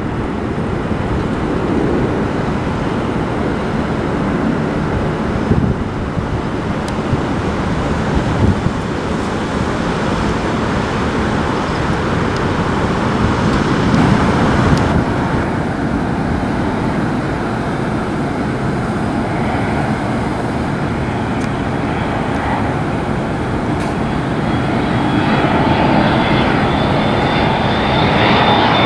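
Jet airliner engines of landing aircraft: a loud, continuous noise that changes character at a cut about halfway through. Near the end a high, steady engine whine comes in from a McDonnell Douglas MD-80's rear-mounted turbofans on final approach.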